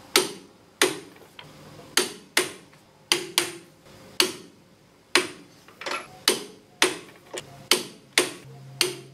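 Ratchet head of a Tekton half-inch-drive click torque wrench clicking as it is worked back and forth on leaf-spring U-bolt nuts, with about two sharp metallic clicks a second and a short ring after each.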